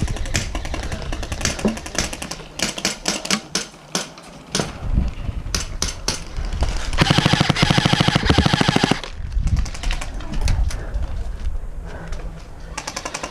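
Electric airsoft rifles firing: scattered single shots and short strings, then a fast full-auto burst of about two seconds. Another rapid burst starts near the end.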